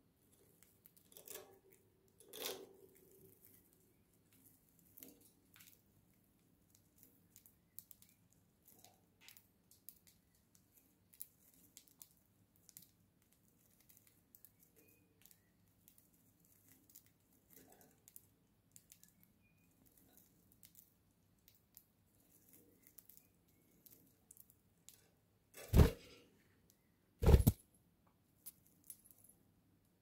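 Small, sparse clicks and taps of pet budgerigars moving about their cage and nibbling with their beaks, with two loud knocks near the end, about a second and a half apart.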